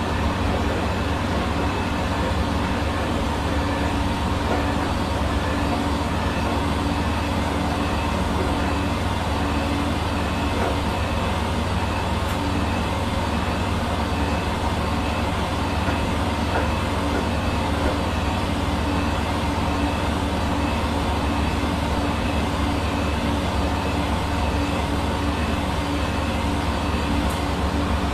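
Hair dryer running steadily: a constant rush of blown air with an even motor hum that does not change.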